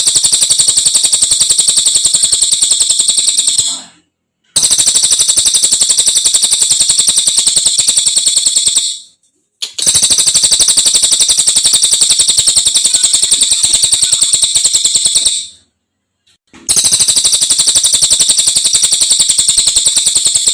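Cililin songbird singing in four long, high-pitched, very rapid rattling trills, each lasting several seconds with short pauses between them.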